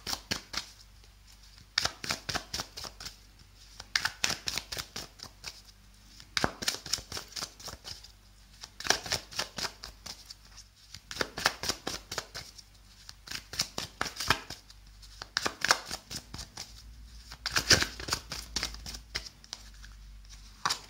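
Tarot cards being hand-shuffled: bursts of quick papery card slaps and riffles, a cluster about every two seconds.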